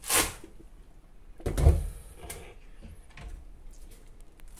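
Kitchen handling sounds: a brief scrape right at the start, then a heavier thump about a second and a half in, like something being set down or a drawer or cupboard being worked, with a small click after it.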